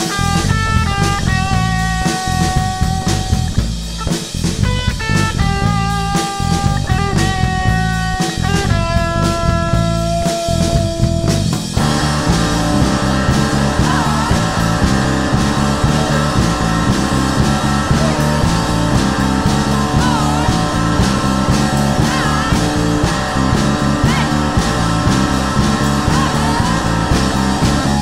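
Background rock music with guitar and a steady driving beat; the melody changes to a denser texture about twelve seconds in.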